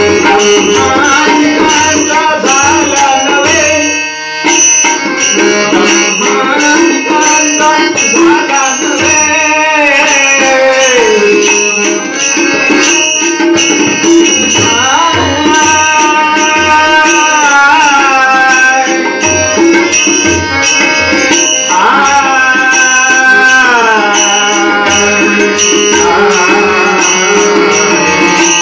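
Bhajan being played on a harmonium, with a hand drum beating a steady rhythm and a man singing a melody that slides between notes.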